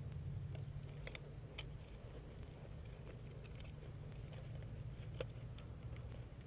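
A low steady rumble with scattered light clicks and taps as a hand-held digital fish scale and a caught largemouth bass are handled.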